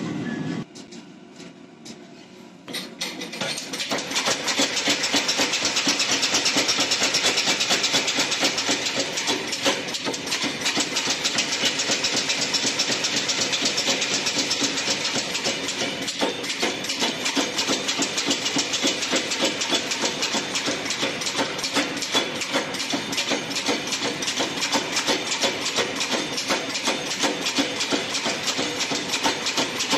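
Power hammer pounding a hot Damascus steel billet in a fast, steady run of blows, starting about three seconds in.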